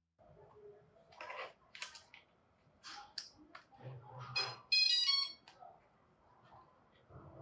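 Scattered clicks and handling rustles, then a short bright electronic beep of several tones, lasting about half a second, a little past the middle.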